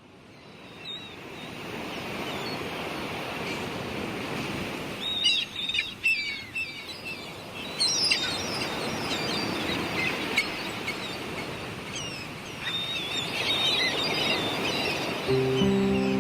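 Seagulls calling over the rushing wash of sea waves, fading in at the start, with the calls coming in clusters. Piano music begins near the end.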